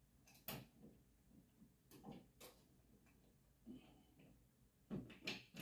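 Near silence with a few faint, scattered clicks and taps: a metal light-fixture mounting bracket and its small screws being handled and fitted against a ceiling junction box.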